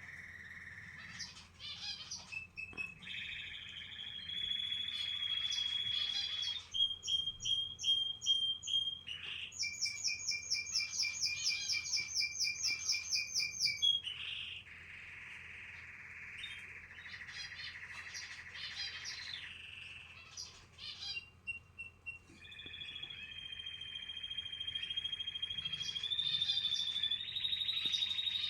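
Canaries chirping and trilling: long held high whistles, with a fast rattling trill of many quick repeated notes about a third of the way in.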